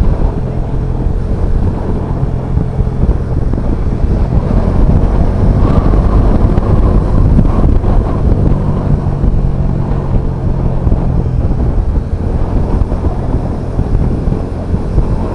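Bajaj Dominar 400's single-cylinder engine running as the motorcycle is ridden, under a steady rumble of wind on the microphone.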